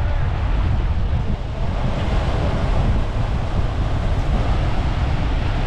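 Sea surf breaking and washing up a sandy beach, with heavy wind buffeting the microphone as a steady low rumble.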